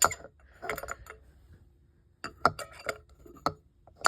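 Sharp metallic clinks and taps from a fire alarm bell being handled and struck, about eight in irregular succession, some leaving a brief faint ring.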